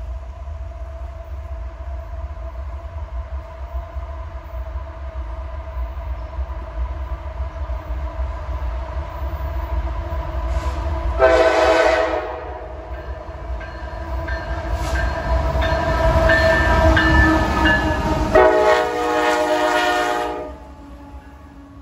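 Diesel freight train approaching, its lead locomotive sounding the horn: faint and distant at first, then a loud blast of about a second about halfway through and a longer loud blast near the end as the locomotives pass, over a low rumble of the train.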